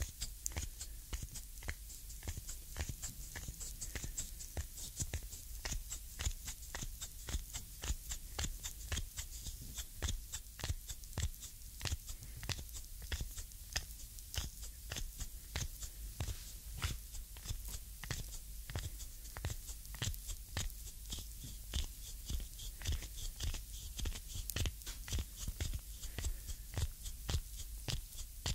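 Foot reflexology massage picked up close on binaural microphones: thumbs and a reflexology stick grinding into the ball of a slick sole, making a dense run of small clicks and crackles of skin, several a second.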